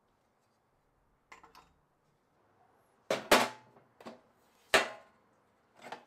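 Sharp metallic clanks and clicks of a steel wrench case being set down on a metal folding chair and opened, the wrenches inside clinking. A couple of faint clicks come first, then four or five loud clanks, the loudest just before the end.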